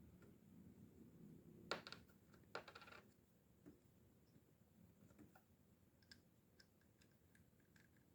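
Faint handling sounds of a spinning fishing reel: one sharp click about two seconds in, a short clatter of small clicks just after, then a few light ticks in a quiet room.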